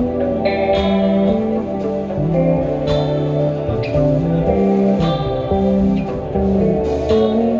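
Live band playing an instrumental passage: guitar over a bass line that steps from note to note, with regular drum and cymbal hits.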